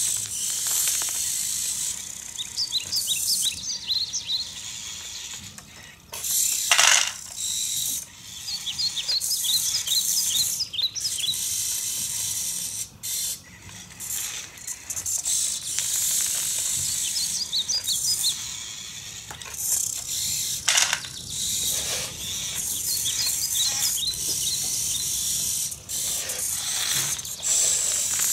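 Siku Control radio-controlled tractor's small electric motors and plastic gears whirring in stop-start bursts as it drives and works its front loader. The loader bucket scrapes and clatters into a pile of small toy stones, with a few louder rattles.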